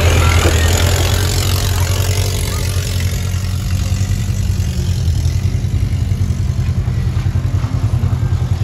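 Side-by-side UTV engine idling steadily with a low rumble. Water splashes in about the first second.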